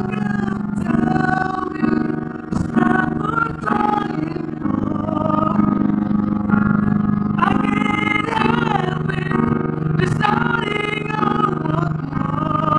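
A singer's voice over accompanying music with sustained low notes, the melody rising and falling.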